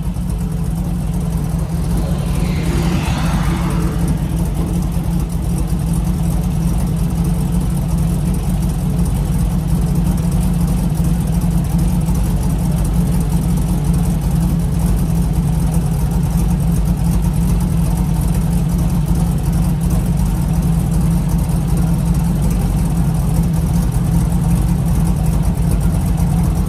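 Car running steadily with a strong low hum, and a brief falling whoosh about two to three seconds in.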